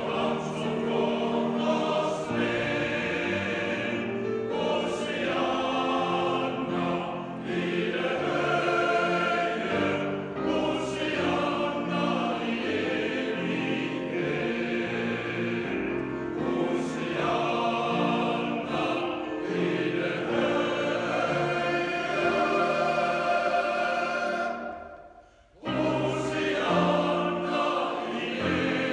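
Men's choir singing in harmony with grand piano accompaniment, ringing in a large reverberant cathedral. The music breaks off briefly about three-quarters of the way through, then resumes.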